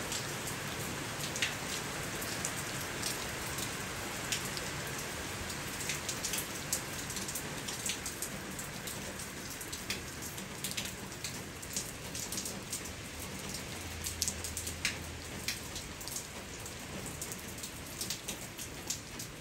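Steady rainfall: a dense hiss with frequent sharp ticks of single drops hitting close by.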